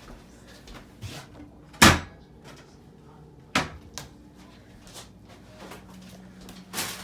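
Sharp knocks and bangs of kitchen handling: a loud bang about two seconds in and another about three and a half seconds in, with a few lighter knocks around them.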